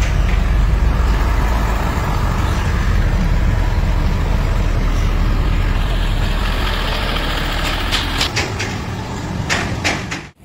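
Heavy truck engine running as the stripped-down truck chassis is driven, with a deep, steady sound. It gets quieter about eight seconds in, and a few sharp clicks come near the end.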